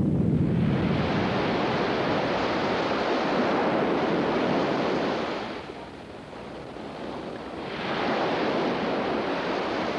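Surf breaking and washing where lava flows into the sea: a dense rushing noise in two long surges, with a brief lull about six seconds in.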